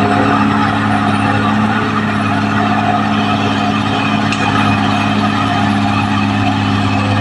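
Caterpillar D6R XL bulldozer's diesel engine running steadily at a constant pitch, with a steady mechanical noise over it.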